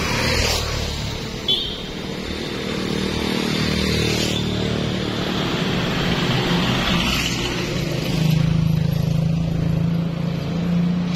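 Motor vehicle engine running with a steady low hum, a little stronger in the second half, with a few brief rushing swells.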